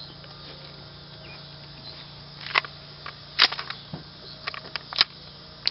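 A rifle being handled: a scattered series of short, sharp metallic clicks and knocks, about ten in the second half, with no shots fired. A faint steady hum runs underneath.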